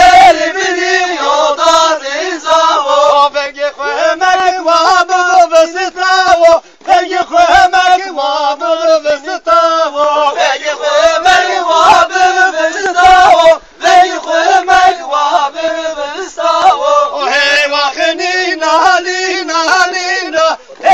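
A group of men singing a Zazaki halay folk song together in a chanting style, phrase after phrase, with short breaks between phrases about a third and two thirds of the way through.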